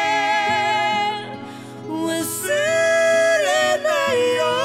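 Slow, sad music: a long-held melody with vibrato over sustained chords, dipping in level briefly about a second in.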